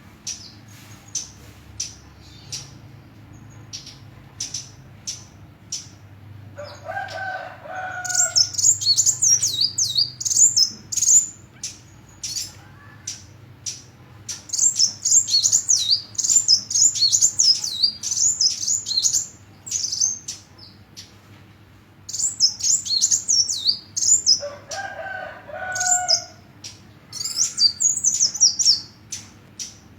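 A sunbird (kolibri) singing. Sharp high chirps come about twice a second, then fast, high warbling song phrases follow in several bouts from about eight seconds in. A lower call from another bird is heard twice.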